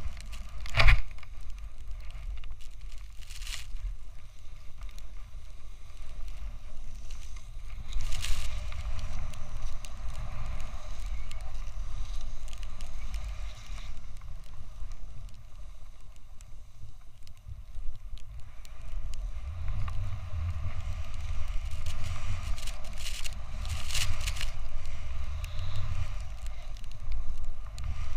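Snowboard sliding and carving down a snow slope: a steady rushing scrape of the base and edges on the snow, with wind rumbling on the microphone. A few sharper scrapes stand out, the loudest about a second in.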